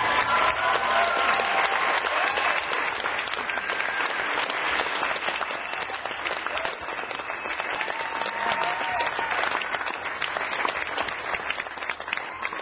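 Congregation applauding, a dense steady clapping with a few cheers near the start, slowly easing off.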